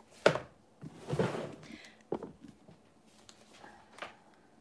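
Handling sounds at a kitchen counter as a cookbook is picked up and opened: a sharp knock near the start, a short rustle about a second in, another knock just after two seconds, and a faint tap near the end.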